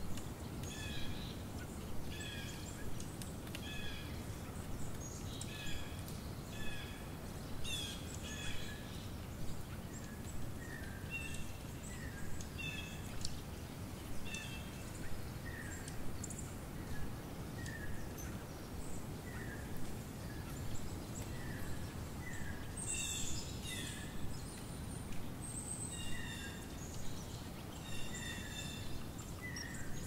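A bird repeating a short call note about once a second, over a steady low background rumble.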